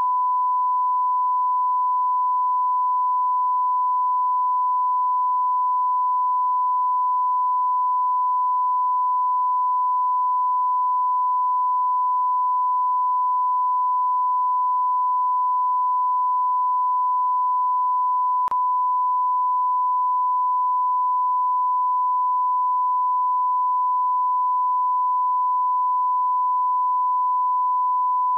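A continuous 1 kHz sine test tone, one pure pitch held at a constant level: the line-up tone that goes with television colour bars, used as a reference for setting audio levels.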